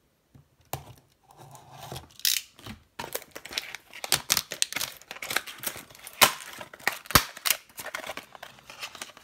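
Plastic wrap being cut and torn off a cardboard box of trading card packs, and the cardboard box being pried open by hand: a run of irregular crinkles, rips and scrapes that starts about a second in and gets busier partway through.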